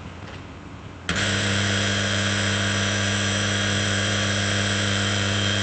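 Electric drill switching on about a second in and running at a steady speed, a constant high motor whine.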